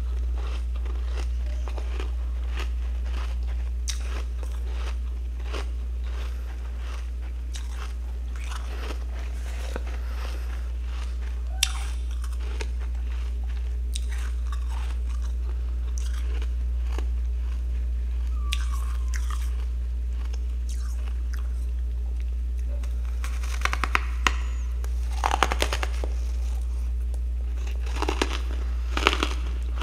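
Freezer frost ice being bitten and chewed close to the microphone: scattered crunches, with thicker runs of crunching about three quarters of the way through and again near the end, over a steady low hum.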